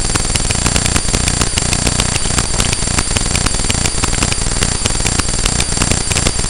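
Steady electrical buzz from a faulty hat-mounted video camera, with high whining tones and a low hum, broken by a constant irregular crackle of sharp clicks.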